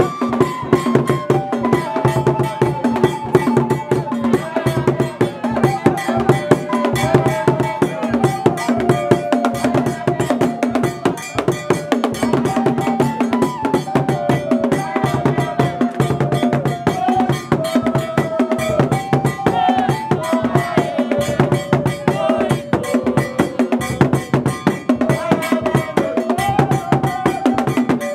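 Dance music with drums and a struck bell keeping a dense, fast rhythm under a melody of held, stepping notes.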